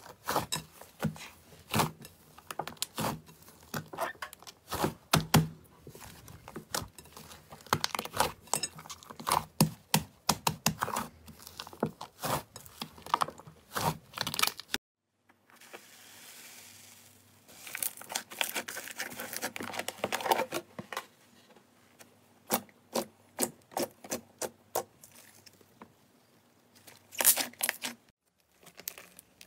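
Hands pressing and kneading thick slime, a quick run of sharp pops and crackles, with a brief silence shortly before the middle.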